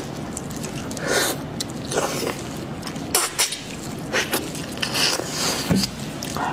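Close-up eating sounds: a series of short wet slurps, sucks and smacks as meat from a spicy sheep's head is bitten and sucked off gloved fingers.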